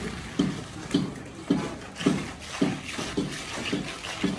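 Steel plastering trowel stroking wet cement render onto a concrete column edge: short wet scraping strokes in an even rhythm, about two a second.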